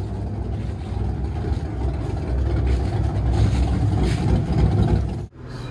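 383 stroker LT1 small-block Chevy V8 running steadily on an engine dyno, heard outside through its exhaust stacks. The sound cuts off suddenly near the end.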